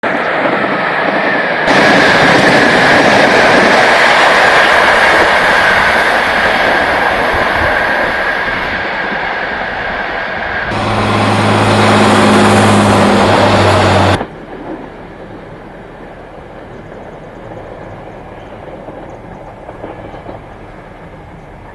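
Train passing close below on the railway: a loud rush of wheel and air noise, joined about eleven seconds in by a steady low hum. Both cut off suddenly about fourteen seconds in, leaving a much quieter distant rumble.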